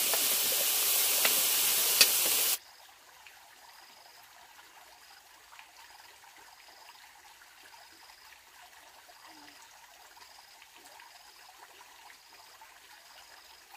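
A loud, steady hiss, like spraying water or sizzling, cuts off suddenly about two and a half seconds in. It leaves faint background with a soft, high chirp repeating about once or twice a second.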